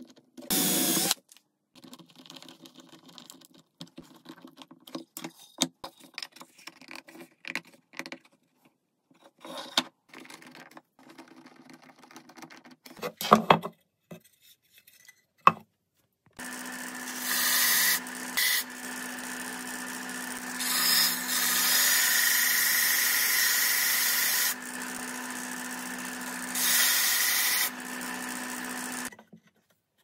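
Scattered light clicks and knocks of wood being handled, then a small electric bench power tool running steadily for about twelve seconds, with several louder stretches as it works the wood, before it stops near the end.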